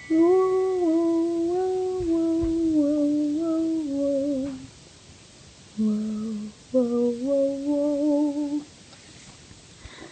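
A person humming a tune in held, stepped notes that mostly drift downward: one long phrase of about four and a half seconds, then two shorter phrases about six and seven seconds in.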